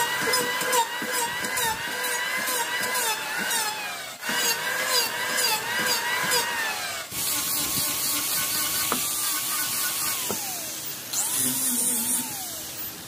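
An electric power tool working wood. Its motor whine dips and recovers about twice a second as it bites. Partway through, the sound changes abruptly, and the whine falls in pitch a few times as the tool slows.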